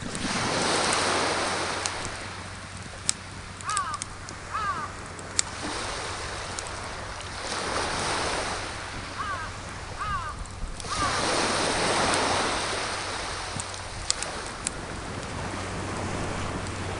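Sea waves washing up the shore in slow surges, with the sharp pops and crackles of a wood fire burning in a small portable fire pit. A few short paired chirps come through in the middle.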